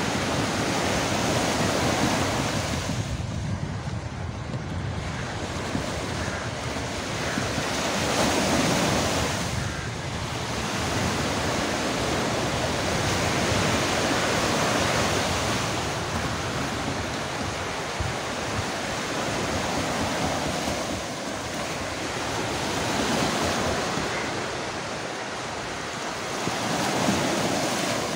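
Sea waves breaking and washing up the beach, the surf swelling and fading every few seconds.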